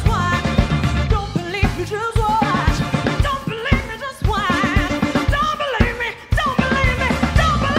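Live band playing a cover: a woman sings lead with wavering, vibrato-laden notes over electric guitar, keyboard and a drum kit. About six seconds in the band drops out for a moment, then comes back in.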